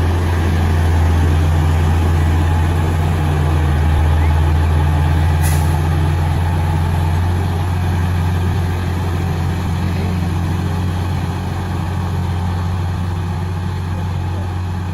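Heavy diesel engine running steadily and low-pitched, with one short sharp sound about five and a half seconds in.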